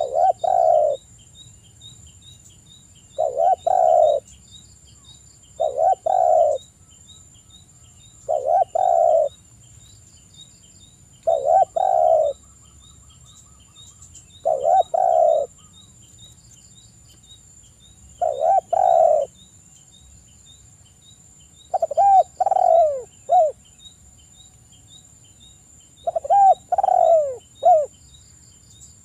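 Spotted dove cooing: a short, repeated two-part coo phrase about every three to four seconds, nine phrases in all. The last two phrases are longer, with three bending notes. A faint, regular high ticking runs behind.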